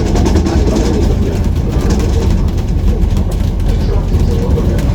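Steady low rumble of a tour bus's engine and city traffic heard from aboard the moving bus, with street noise over it.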